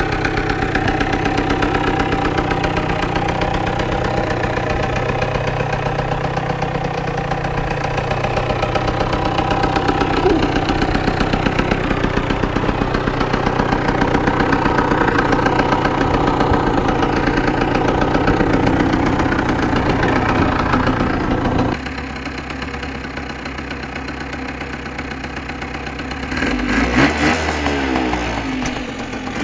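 Tomos ATX moped's two-stroke single-cylinder engine, tuned with a UMO 6 setup and a Dellorto PHBG 19 carburettor, running steadily. After an abrupt cut about two-thirds of the way in it idles more quietly, then is revved up and down a few times near the end.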